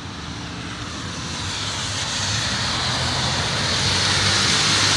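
An engine approaching and growing steadily louder, a steady low hum under a rising rush of noise.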